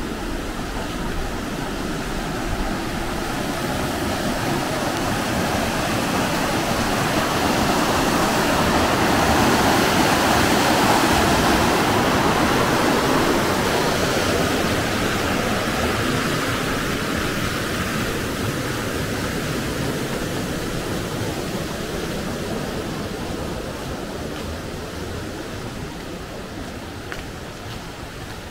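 Shallow rocky stream rushing, swelling to its loudest about ten seconds in and then slowly fading.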